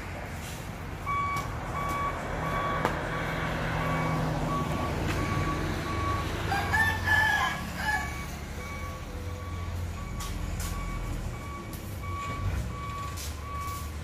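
Hyundai 5-ton dump truck's reversing alarm beeping at an even pace over the low running of its engine, as the truck backs up. A rooster crows about halfway through.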